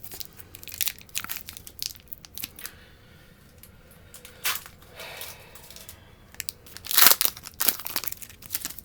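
A trading-card pack's foil wrapper being torn open and crinkled, in short crackly bursts, with the loudest crinkle about seven seconds in.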